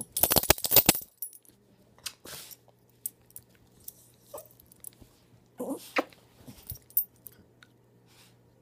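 Miniature pinscher licking a man's face close to the microphone: quick wet licking smacks mixed with the jingle of its metal collar tag, densest in the first second, then only a few scattered licks.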